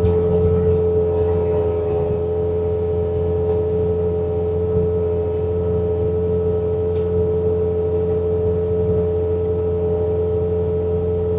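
Bobcat T66 track loader's diesel engine running steadily under load, driving its snowblower attachment, with a steady high whine over the low drone, heard from inside the cab. A few faint sharp ticks come through, the first about a second in.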